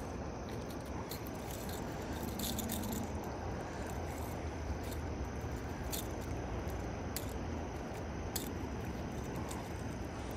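Steady rush of river water, with a few light clicks and rattles scattered through it.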